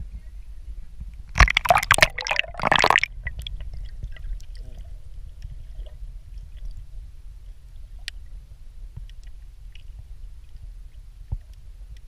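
Water splashing right at the camera for about a second and a half, then the dull low rumble of the camera held underwater, with a few faint clicks.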